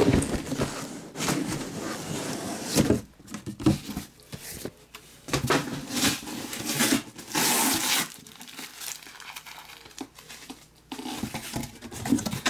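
Crinkling and rustling of shrink-wrapped trading card boxes and their cardboard case being handled, in irregular bursts that are louder in the first few seconds and again around the middle, then quieter.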